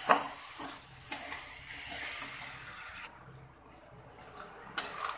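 Potato and cabbage curry sizzling in a steel kadhai while a metal spatula stirs and scrapes it, with sharp clinks of the spatula on the pan at the start, about a second in, and near the end. The sizzle dies down after about three seconds.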